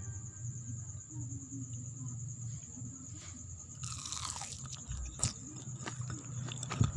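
A fried tape singkong fritter being torn apart by hand, its crisp crust giving a short crackling crunch about four seconds in, then a few small clicks and crunches, over a faint low hum.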